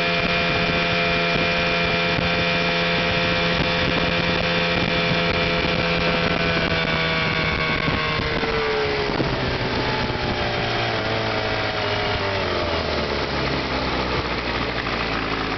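West Bend Commodore 18 hp two-stroke outboard motor running at a steady speed, then throttled back about halfway through, its pitch falling steadily until it settles at a low, slow run near the end.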